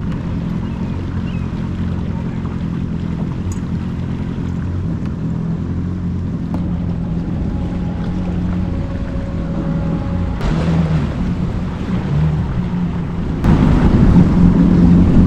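Jet ski engine running at low, no-wake speed with water wash around the hull, a steady low drone. About thirteen seconds in it gets louder as the throttle opens.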